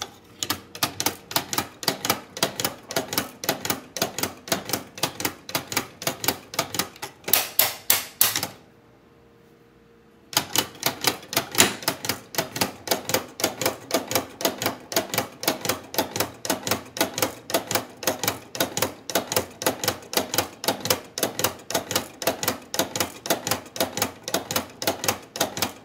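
3D-printed plastic watch escapement ticking as it runs: the pallet fork striking the escape-wheel teeth while the balance wheel swings on its hairspring, in rapid even ticks about four or five a second. The ticking breaks off for about two seconds a third of the way through, then starts again.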